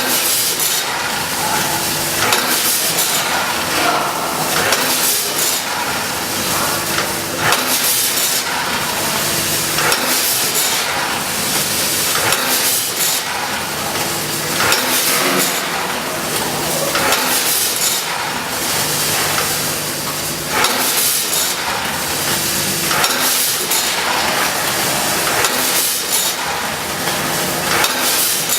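Vertical form-fill-seal bag packaging machine running off a roll of film: a steady hum and hiss with a clack of its mechanism about every second or two as it cycles.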